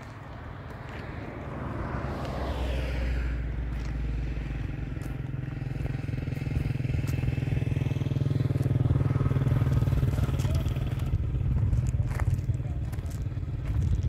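Low, steady rumble of a motor engine running, growing louder over the first two seconds, with footsteps crunching on gravel and scattered clicks.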